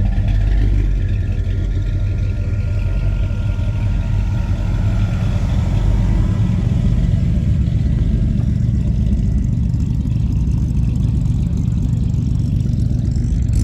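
A car engine running steadily close by, its sound sitting mostly low.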